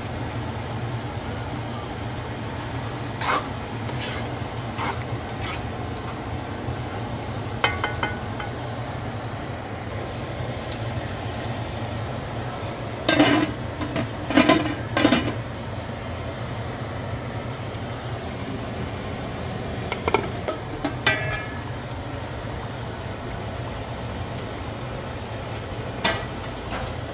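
Kitchen cooking clatter: pots, pans and utensils knocking and clinking at intervals, some clinks ringing briefly, over a steady low hum. A cluster of three louder knocks comes about halfway through.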